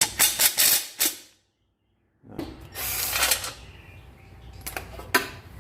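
Metal hand tools and bolts clinking and rattling during work on a car's bell housing. A quick run of sharp clicks comes first, then a short gap, a longer rattle about two seconds in, and two sharp clinks near the end.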